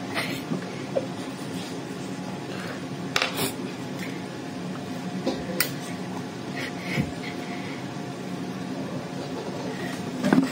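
Steady faint room hum with a few light clicks of a metal spoon against a ceramic bowl, the clearest about three seconds in and again near six seconds.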